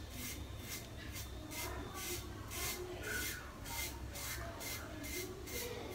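Mühle R41 double-edge safety razor scraping stubble off a lathered scalp in quick, short strokes, about three a second.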